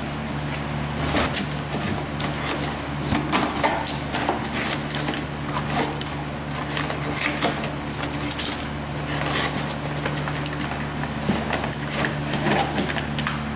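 Cardboard box being opened and handled: flaps bent back and packaging and papers rustling, in irregular crackles and scrapes over a steady low hum.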